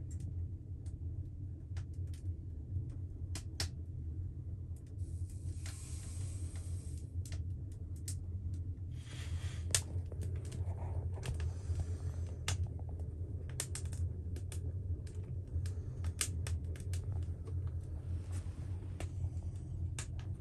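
A steady low rumble, like a vehicle running, with many irregular sharp clicks and rattles over it and two brief stretches of hiss.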